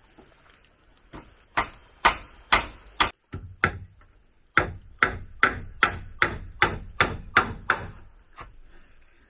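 A hand tool striking wood over and over, about two hard blows a second, with a short break around four seconds in.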